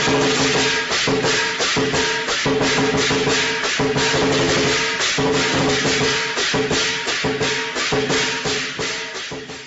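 Background music with a steady, fast rhythmic beat.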